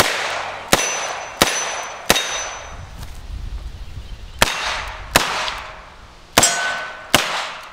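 Eight shots from a Smith & Wesson 327 eight-shot .357 Magnum snub-nose revolver: four quick shots about two-thirds of a second apart, a pause of about two seconds, then two pairs. Each shot echoes away, and several are followed by a brief ringing metallic tone.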